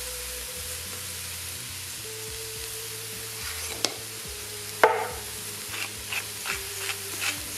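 Food sizzling in an Instant Pot's stainless inner pot on the sauté setting, with two sharp clicks near the middle. From about five and a half seconds a pepper mill starts grinding in short, regular twists, about two or three a second.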